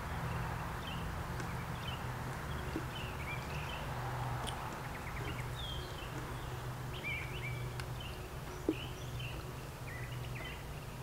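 Birds chirping in short, scattered calls over a steady low hum, with one light knock near the end.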